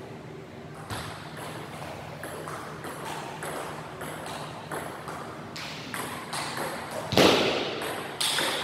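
Table tennis rally: the celluloid-type ball knocking off the paddles and bouncing on the table in a quick back-and-forth of light clicks, about two a second. There is a louder burst about seven seconds in.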